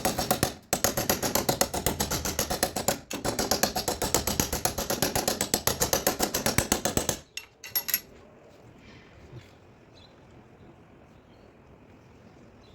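Rapid, even tapping on a car body panel, several strikes a second, as a paintless dent repair tap-down hammer knocks down high spots around a dent. It stops about seven seconds in, with two last taps just after.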